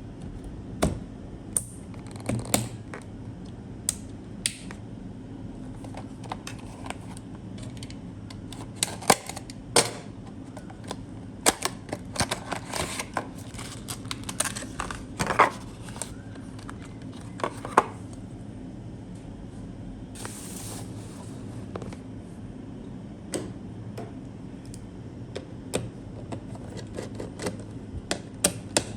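PC components and packaging being handled during assembly: scattered sharp clicks and light knocks, some in quick clusters, with a brief rustle about 20 seconds in.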